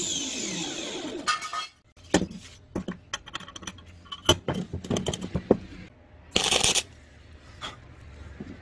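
Handheld angle grinder spinning down after a cut, its whine falling away over the first second and a half. Then galvanized steel bracket pieces clink and knock on a steel workbench as they are handled, with a brief scrape about six and a half seconds in.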